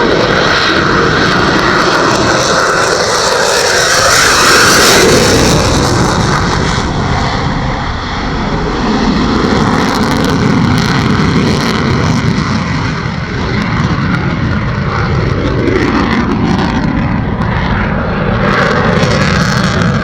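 F-16 Fighting Falcon fighter jet's engine, loud and continuous during its flying display, swelling to its loudest about five seconds in.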